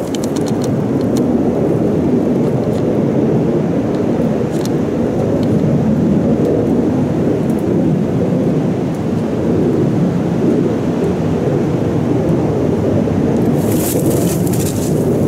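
A loud, steady low rumble, with crunching, rustling footsteps in dry fallen leaves at the start and again near the end.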